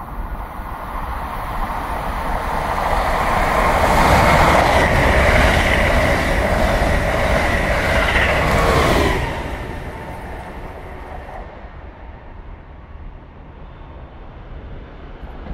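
Amtrak Acela Express high-speed trainset passing through a station at speed without stopping: a rush of wheels on rail and moving air that builds, stays loud for about five seconds, then drops suddenly about nine seconds in as the train clears and fades away.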